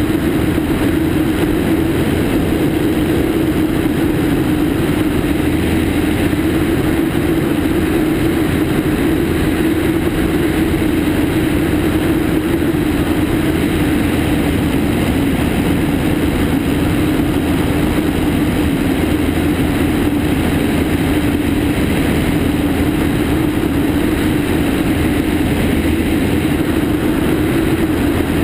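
Cessna 152's four-cylinder Lycoming O-235 engine and propeller running steadily in flight, heard from outside the aircraft with wind rushing over the microphone. The pitch holds constant throughout.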